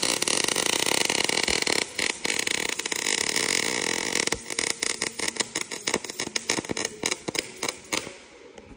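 MIG welding arc crackling, steady at first, then more broken and sputtering in the second half, and cutting off near the end. The nozzle is held a little too far from the work.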